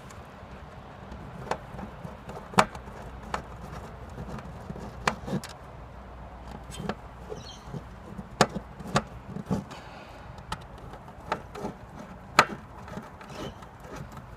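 Hand screwdriver driving the screws of a plastic junction-box cover on the back of a solar panel: irregular sharp clicks and taps of the driver and screws against the cover.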